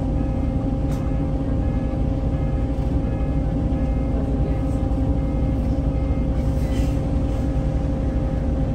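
Scania L94UB city bus engine idling, heard from inside the passenger cabin while the bus stands still: a steady low rumble with a steady whine over it.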